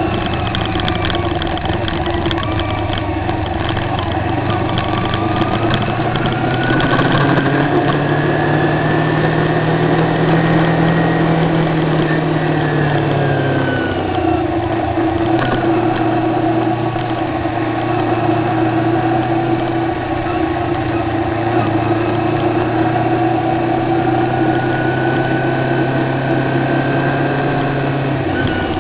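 Kawasaki Ninja 250R's parallel-twin engine running at low road speed, its pitch rising slowly as the bike speeds up, dropping back when the throttle eases, then climbing again near the end.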